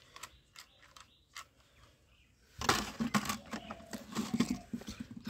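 Plastic toy guns knocking and rattling against each other and a plastic bucket as they are handled, a quick irregular run of clicks and clatters starting about halfway in; before that only a few faint clicks.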